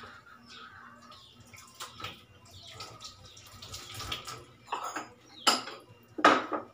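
Water running and splashing in a stainless-steel kitchen sink, with a few light knocks of dishes against the basin, then two louder splashes near the end.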